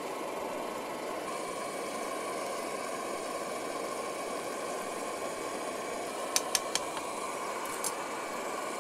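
Optimus Polaris stove's burner running steadily under a frying pan of steak, with the food frying, giving an even rushing noise. A metal utensil clicks sharply against the pan three times in quick succession about six and a half seconds in, and once more near the end.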